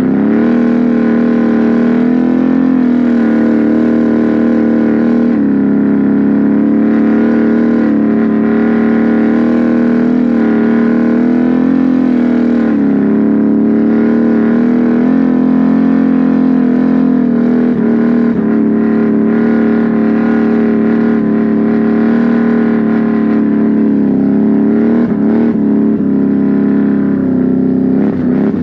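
Can-Am Renegade 1000 XMR's Rotax V-twin engine, fitted with an aftermarket SLG exhaust, running loud under throttle at fairly steady revs, with small rises and dips in pitch as the ATV is ridden through mud.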